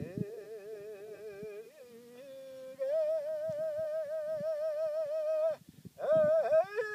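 A voice singing long, high held notes with a wide vibrato, breaking off briefly before a last note that swoops up and falls away.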